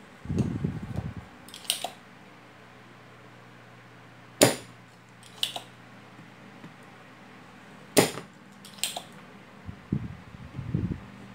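Spring-loaded desoldering pump firing twice with sharp snaps about three and a half seconds apart, with fainter clicks in between and low handling noise near the start and end. It is sucking molten solder to free damaged diodes and a fuse from a TV main board.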